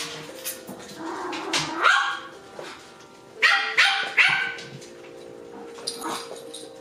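Six-week-old toy poodle puppies yapping: one high-pitched bark about two seconds in, then a quick run of three more a little past halfway.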